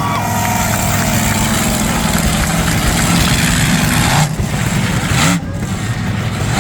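Monster truck engine running loudly, dropping off briefly twice near the end and revving back up each time.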